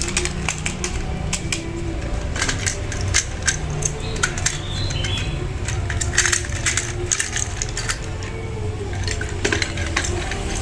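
Hard plastic toy train parts being handled and fitted together, with many irregular sharp clicks and clatters.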